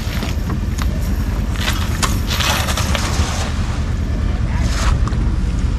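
Small river boat underway: a steady low rumble, with scattered knocks against the hull and a brief rushing hiss about two and a half seconds in.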